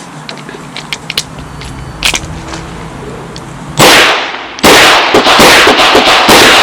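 Handgun shots beginning about four seconds in: one loud report, then a rapid string of shots so loud the recording overloads. The string comes at the end of a course of fire, just before the unload-and-show-clear commands.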